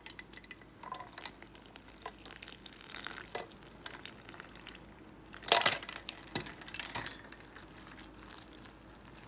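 Ice water poured from a stainless steel bowl into a steel mixing bowl of flour and vegetables, the ice cubes clinking and splashing, then the batter being mixed in the bowl. Scattered clicks and rustles throughout, with one louder clatter about five and a half seconds in.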